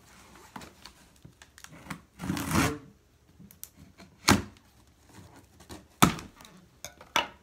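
Cardboard box being opened by hand: light scratching and clicking at the taped seam, a short rasp about two seconds in, and two sharp knocks of the cardboard about four and six seconds in as the flaps are worked open.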